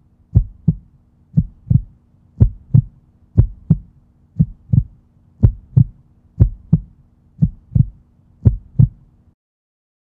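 Heartbeat sound effect: paired lub-dub thumps, about one pair a second, over a faint low hum, cutting off abruptly near the end.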